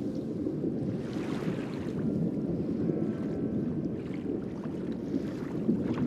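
Underwater ocean ambience: a low, steady rushing wash, with soft swells of higher hiss about a second in and again near the end.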